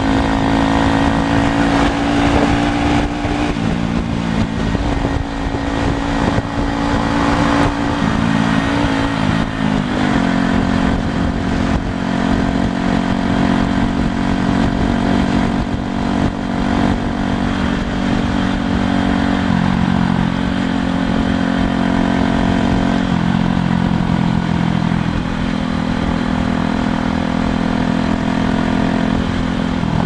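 Motorcycle engine running at highway cruising speed, its note stepping down and up a few times as the speed changes, over steady wind and road noise at a helmet-mounted camera.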